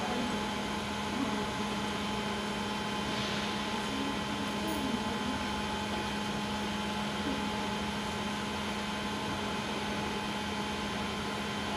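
BGA rework station running as it heats a circuit board, its fans and hot-air blower giving a steady whir with a constant low hum.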